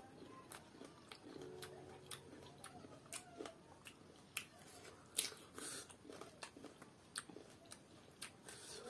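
Close-up chewing of raw green mango: irregular sharp crunches and mouth clicks, a couple a second.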